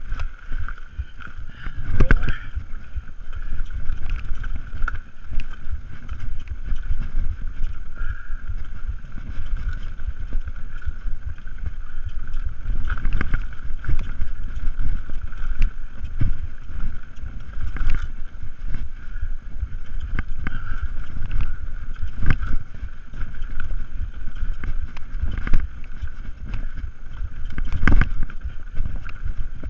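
Mountain bike rattling down a rough dirt singletrack, with a constant low rumble and wind buffeting the microphone. Sharp knocks from the bike hitting bumps in the trail come every few seconds; the loudest are about two seconds in and near the end.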